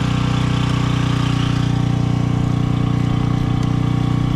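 An engine running steadily at idle: an even, unchanging hum.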